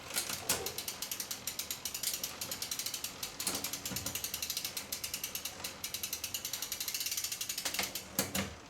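Bicycle rear freehub ratcheting as the wheel spins on the stand: rapid, even ticking of the pawls, about ten a second, with a few louder knocks along the way.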